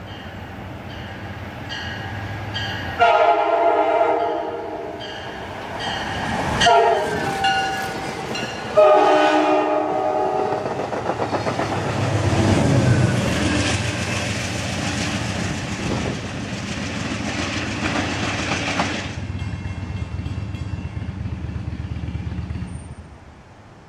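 Amtrak Downeaster passenger train, led by an EMD F40PH cab-control car, approaching and passing close by. Its horn sounds three chord blasts in the first ten seconds, then the train goes past with a steady rushing noise and clicking wheels for about eight seconds. Near the end the sound drops abruptly to a quieter, steady rumble.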